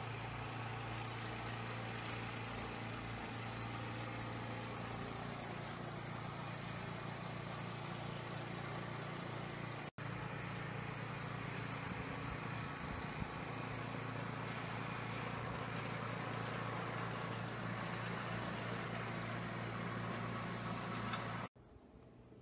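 An engine running steadily with a low hum. It breaks off for an instant about ten seconds in and drops away near the end.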